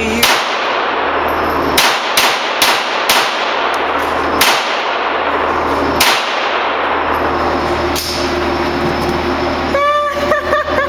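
Gunshots: about seven sharp reports in the first six seconds, three of them in quick succession about half a second apart, each with a short ringing tail.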